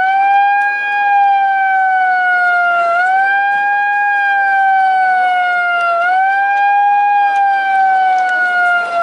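A siren wailing in a steady repeating cycle: a quick rise in pitch then a slow fall, once about every three seconds.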